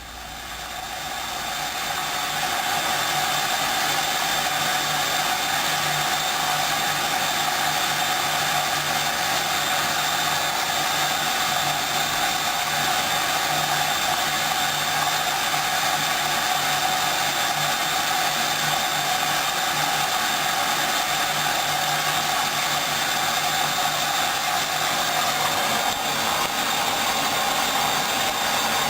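Hoover DYN 10124 DP washing machine running, a steady motorised whir that builds up over the first few seconds and then holds level.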